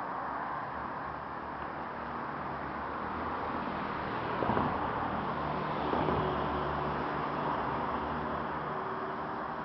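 Street traffic: vehicle engines running steadily, with two short louder sounds about four and a half and six seconds in.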